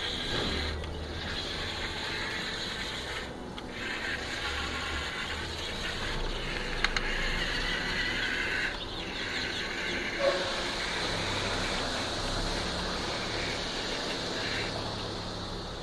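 Huina 1550 toy RC excavator's small electric gear motors whining as it works, starting and stopping in stretches of a few seconds as different movements are run, with a couple of short clicks.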